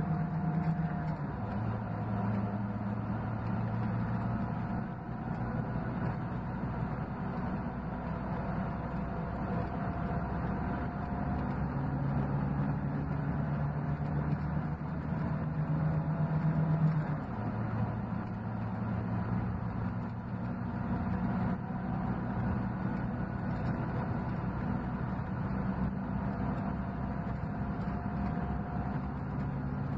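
Scania K380 coach's DC12 inline-six diesel engine idling steadily. Its note rises for a few seconds around the middle, then settles back.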